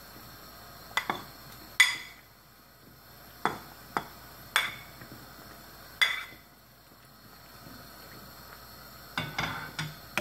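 Metal ladle clinking against a ceramic plate as vegetables are pushed off it into a pot: separate sharp clinks with a brief ring, about seven in the first six seconds. Near the end comes a quicker run of knocks as the ladle goes into the pot.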